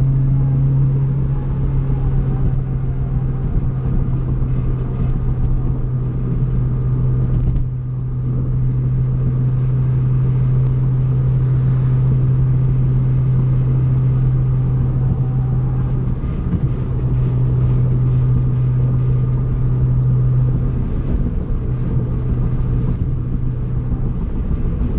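Honda Fit's 1.5-litre four-cylinder with a Spoon exhaust and short 4.928 final drive gears, droning at a steady highway cruise, heard from inside the cabin over road rumble. The drone dips briefly about a third of the way in and wavers near the end.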